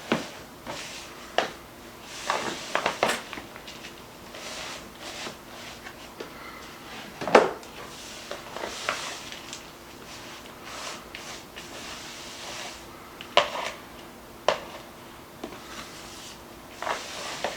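A utensil folding a sticky coconut and egg-white mixture in a bowl: soft scraping and squishing, broken by scattered knocks and clicks against the bowl, the sharpest about seven seconds in.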